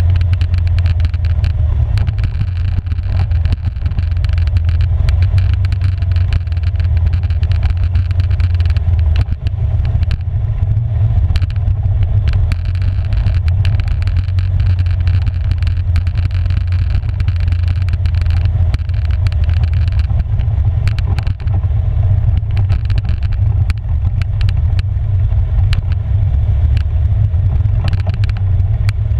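Polaris 570 ATV's single-cylinder four-stroke engine running steadily while riding a gravel trail, with frequent clicks and rattles from stones and the bouncing machine.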